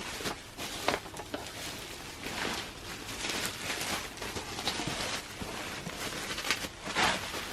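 Packaging being handled and unwrapped by hand: steady rustling and crinkling of wrap, with scattered small clicks and taps.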